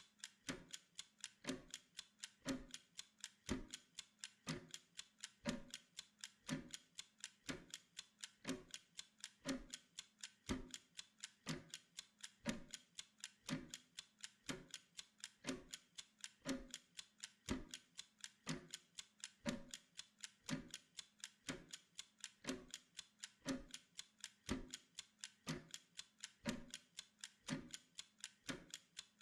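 Steady mechanical clock-style ticking used as a Pomodoro timer, several sharp ticks a second in an even, repeating pattern.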